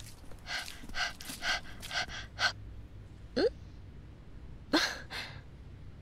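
A woman voicing a dog girl makes breathy non-verbal sounds: about five quick noisy breaths half a second apart, a short rising voiced whine about three and a half seconds in, then two sharp gasps near the end.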